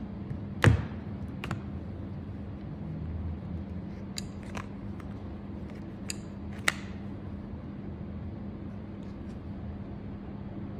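A few sharp clicks and knocks, the loudest under a second in and another about two-thirds through, over a steady low hum.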